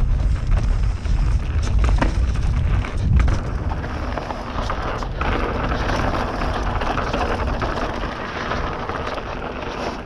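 Hardtail mountain bike descending a rough, dry, dusty trail. Wind rumbles on the microphone and the bike clatters with a few sharp knocks over the bumps. From about four seconds in, tyres hiss steadily over loose dry dirt.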